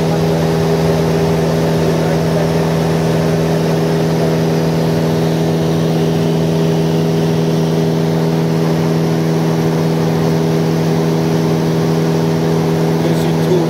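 Light aircraft's engine and propeller running steadily in cruise, heard inside the cabin: an even drone made of several steady tones over a hiss, with no change in pitch.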